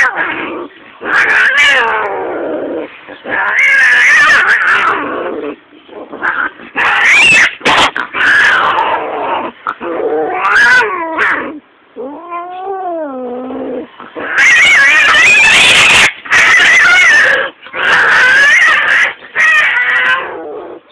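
A cat yowling loudly again and again in long caterwauls that rise and fall in pitch, with one lower, wavering yowl about halfway through.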